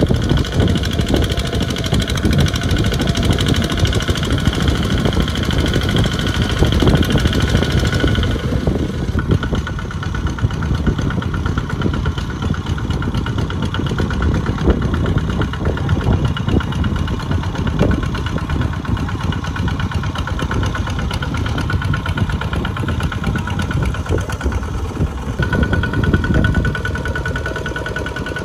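Single-cylinder diesel engine of a two-wheel walking tractor running hard with a fast, steady knock, its lugged wheels churning a trailer loaded with rice sacks through deep mud. The sound shifts in tone about a third of the way in and again near the end.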